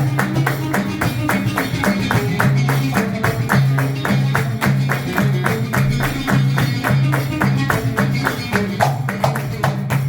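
Live Hadhrami music: a plucked oud playing a repeating bass figure over fast, steady hand-drum strokes, about five a second.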